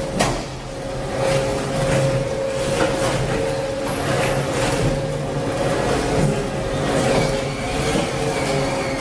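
Inclined cleated conveyor running and carrying shredded scrap up into a dump trailer. It makes a steady machine hum with a constant whine, over an uneven clatter of pieces tumbling along the belt and dropping off the top.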